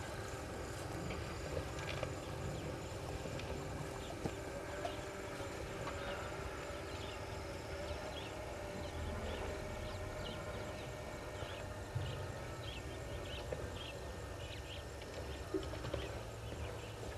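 Outdoor bush ambience: a steady low rumble, short high chirps repeating from about six seconds in, and a few soft knocks.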